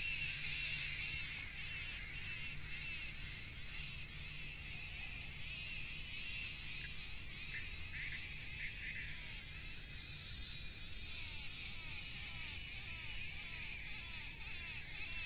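Steady high-pitched chorus of insects in dry grassland and trees, with short rapid ticking trills breaking in now and then and faint short chirps underneath.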